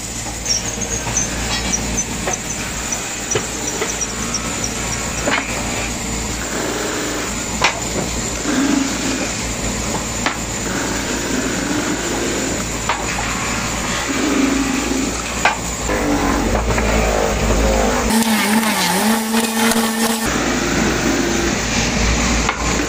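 Large shop-built disc sander running while the edges of a wooden box are pressed against the spinning abrasive disc: a steady scraping hiss of sanding over a low motor hum, with scattered sharp clicks as the box is shifted on the table.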